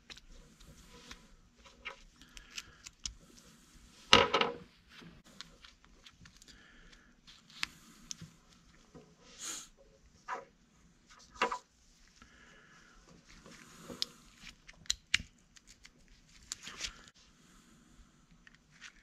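Scattered clicks, taps and a short clatter of small plastic and metal RC parts being handled: the bearings, gears and axle of an RC crawler's portal gearbox being moved from a plastic portal into an aluminum portal housing. The loudest clatter comes about four seconds in.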